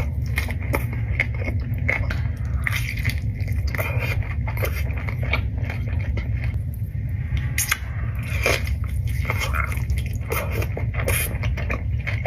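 Close-up eating sounds from tacos being bitten and chewed: irregular small crunches, clicks and wet smacks, over a steady low rumble.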